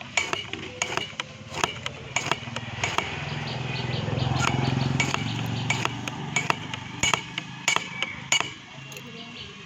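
Knife chopping green guava into small pieces, sharp knocks of the blade coming every half second or so. A low engine hum swells and fades in the middle.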